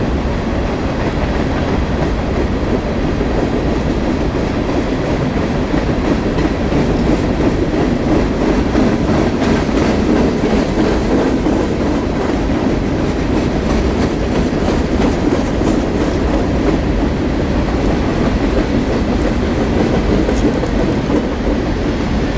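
Freight train cars rolling past: a steady rumble of steel wheels on rail, with clicking as the wheels cross rail joints.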